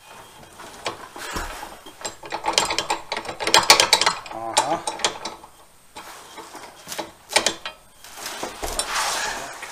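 Hand ratchet wrench clicking in short runs of quick strokes, with metal parts knocking, as the mounting bolt of a mower's electric PTO clutch is run in.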